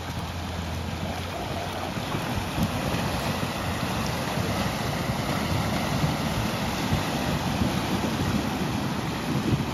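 Water sloshing and splashing around the wheels of a Rivian R1T electric pickup as it drives through shallow river water. No engine note is heard, only the water, with wind buffeting the microphone.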